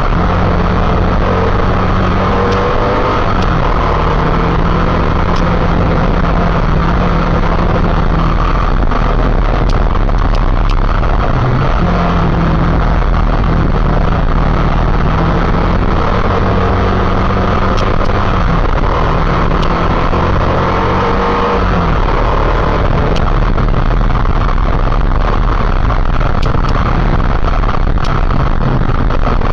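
Motorcycle engine running under way, its steady note breaking off and picking up again a few times, over a loud rushing noise.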